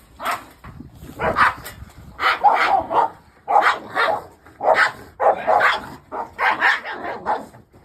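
Two large dogs fighting over food, barking in loud bursts about once a second.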